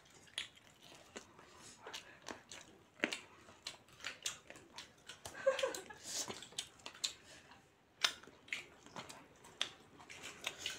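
A person chewing food close to the microphone: irregular wet mouth clicks and smacks. A short voice-like sound comes about five and a half seconds in.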